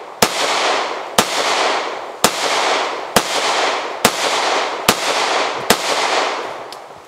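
Sig Sauer P938 Nightmare 9mm pistol firing hot Buffalo Bore 95-grain +P rounds: seven sharp shots about a second apart, each trailed by an echo rolling back from the surrounding woods.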